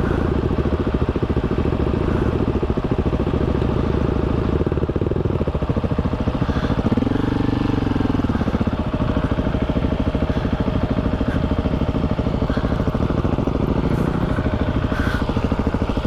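Single-cylinder KTM 690 motorcycle engine running steadily under way on a dirt trail. Its note rises and falls once about seven seconds in.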